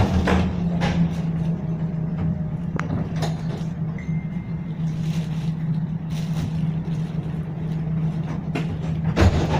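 Inside a tram standing still: a steady low hum from the tram's onboard equipment, with a few scattered knocks and clicks, the loudest thump near the end.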